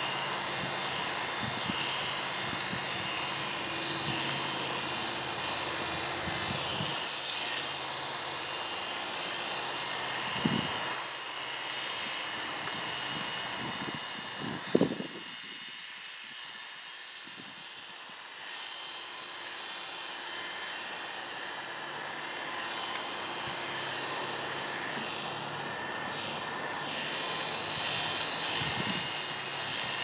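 Oster A5 electric dog clippers running with a steady buzzing hum as they are worked through a Brittany's coat. Two brief knocks come near the middle, and the hum is a little quieter for several seconds after the second one.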